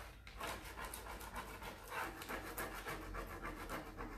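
Plastic transfer applicator rubbing in quick repeated strokes over an IOD transfer sheet on a deeply grooved pine board, edge-on to press the transfer into the grooves.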